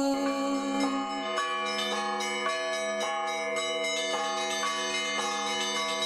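Church bells ringing, a quick even peal of two or three strokes a second, each tone ringing on under the next.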